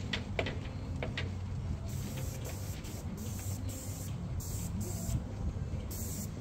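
Paint sprayer spraying in short, repeated bursts of hiss, starting about two seconds in, over a steady low mechanical hum. A few sharp clicks come in the first second and a half.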